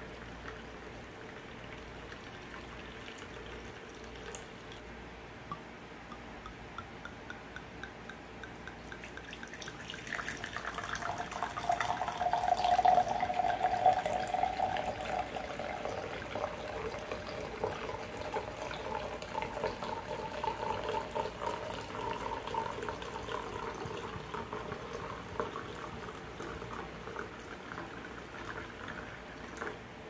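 Red wine poured in a stream from a swing-top glass bottle into a cut-glass tumbler. The pour comes in about ten seconds in, is loudest soon after, and its pitch rises steadily as the glass fills. Before it there are only faint scattered ticks.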